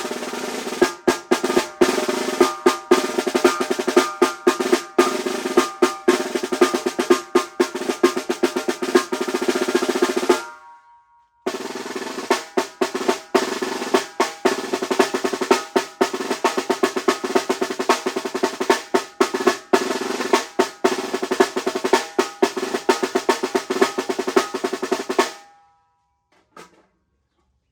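Snare drum played alone: fast rolls with louder accented strokes, in two passages split by a pause of about a second. The playing stops a couple of seconds before the end.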